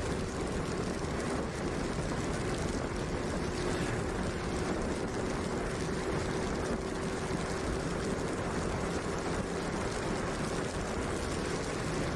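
Yamaha motorbike riding at a steady speed on a wet road: a steady engine hum under constant wind and tyre noise.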